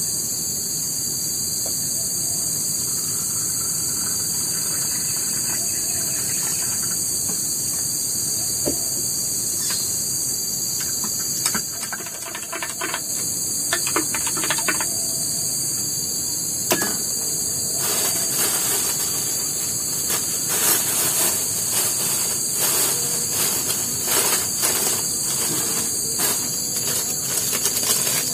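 Steady high-pitched drone of a forest insect chorus. From about two-thirds of the way through, many light clicks and taps are added.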